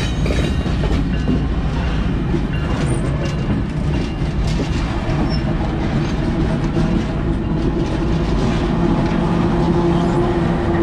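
Several diesel-electric freight locomotives passing close by at a steady pace: a continuous heavy rumble of engines and steel wheels on the rails, with a steady engine drone growing stronger over the second half.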